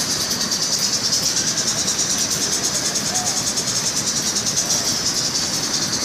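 Wide-width heavy-duty fabric rolling machine running steadily: a continuous mechanical whir with a high-pitched hiss as the fabric travels over its rollers.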